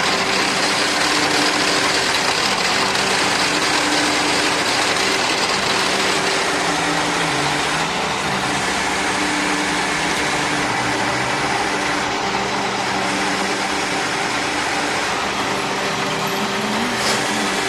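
Milling machine running steadily during keyway cutting: a loud whirring hum over a broad hiss, the hum sagging briefly in pitch about halfway through.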